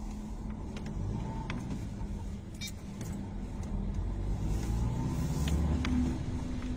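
A car running on the road, heard from inside the cabin: a steady low engine and road rumble that grows somewhat louder in the second half.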